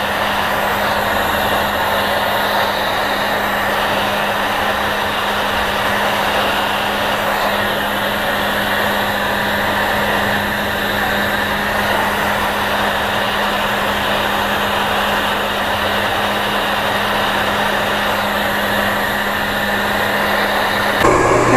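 Hand-held hair dryer running steadily, blowing on wet hair, a constant whir with a low hum underneath.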